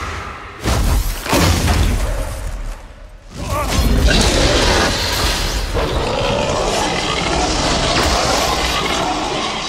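Film battle soundtrack: orchestral score under heavy booms and crashing impacts, with sudden loud hits about half a second in and again about three and a half seconds in.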